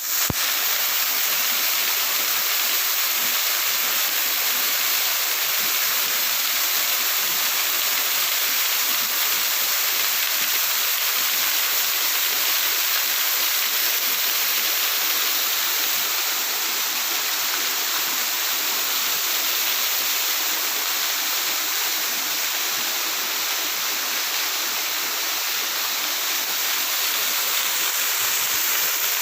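Waterfall: water falling and rushing in a steady, unbroken roar of hiss-like noise.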